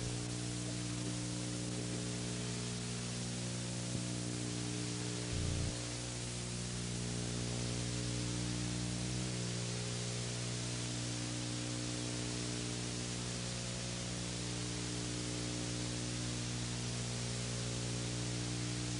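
Steady hiss with a low electrical hum underneath, with a short low blip about five and a half seconds in.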